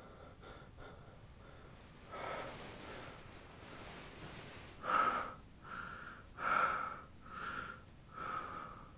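A man breathing hard after waking with a start: one breath about two seconds in, then quick heavy breaths, about one every second, from about five seconds in.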